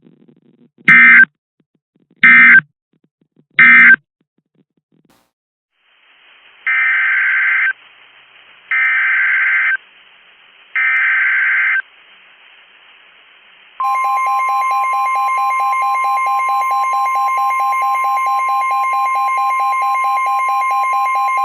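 Emergency Alert System data and tones. First come three short, loud SAME digital bursts, the end-of-message code closing the previous alert. After a pause come three longer SAME header bursts opening the next alert. Then the steady two-tone EAS attention signal (853 and 960 Hz) starts about two-thirds of the way through and holds.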